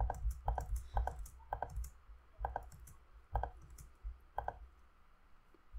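Clicks of a computer keyboard and mouse working shortcuts, about a dozen sharp clicks in uneven bursts that stop about four and a half seconds in.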